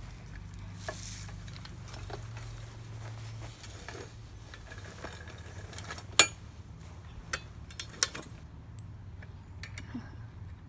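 Metal bike parts clinking and rattling as an old BMX bike is handled. There is a sharp clank about six seconds in and two more near eight seconds.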